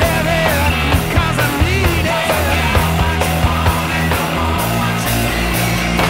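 Loud rock music with a steady drum beat.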